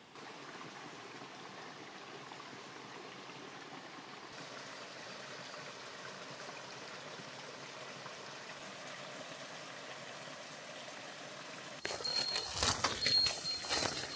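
Steady rushing of running water, like a small forest stream. About twelve seconds in it cuts to louder rustling and knocking, with a high, thin tone coming in short repeated pulses.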